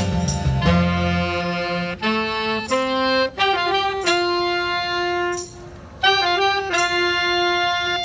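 Small jazz combo playing, saxophones and other horns holding chords together. The bass drops out about two seconds in, and there is a brief break in the horns a little before six seconds.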